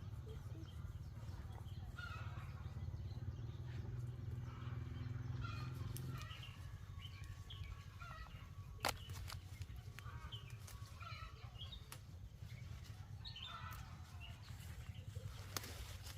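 Chickens clucking and calling. A low steady hum stops about six seconds in, and a single sharp knock comes a little later.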